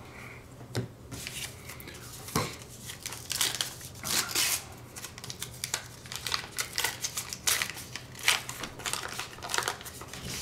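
Foil wrapper of a 1989 Upper Deck baseball card pack crinkling and tearing as it is opened by hand, with irregular rustles and crackles throughout.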